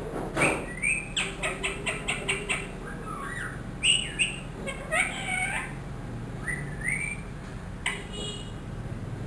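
Ringneck parrot chirping and calling: a quick run of short clicking chirps about a second in, then several separate rising and falling whistled calls.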